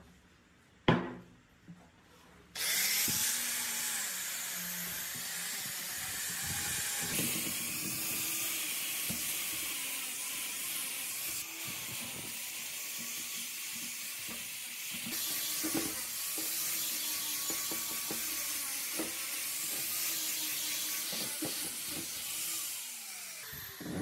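Electric angle grinder with a red abrasive disc running against the rusty steel base of a hydraulic jack, stripping rust, its whine wavering as the disc is pressed on. A sharp knock comes about a second in, before the grinder starts, and it spins down near the end.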